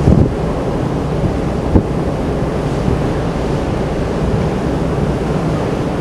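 Wind buffeting the microphone over a steady rush of open sea, with gusts thumping at the start and again just under two seconds in.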